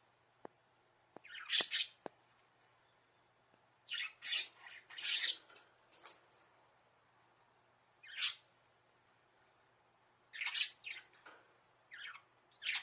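Pet budgerigars giving short, scratchy chirps and squawks in scattered bursts, with a few sharp clicks in the first two seconds. The owner takes the calls for the birds calling her to come and play.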